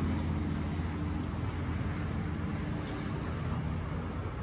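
A steady low mechanical hum, with a couple of faint ticks.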